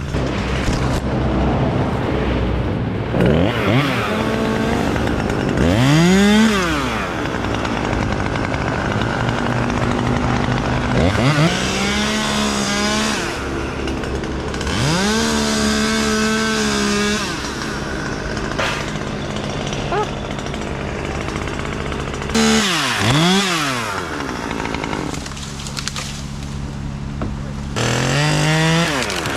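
Gas chainsaw revving up, holding under load while it cuts, then dropping back to idle, several times over. A second engine runs steadily underneath.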